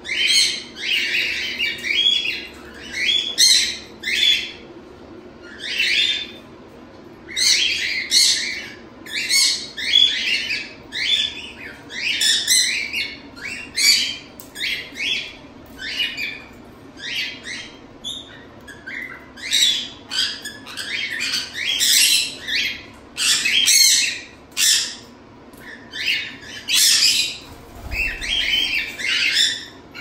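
Pet parrots, cockatiels and conures, calling and squawking over and over, a loud call every second or so with short pauses between runs of calls.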